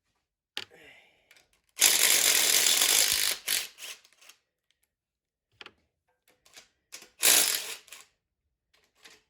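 Ratchet wrench loosening the bolts on the bottom end of a 5.3 LS engine. There are two long runs of fast ratcheting, about two seconds in and about seven seconds in, with scattered single clicks between them.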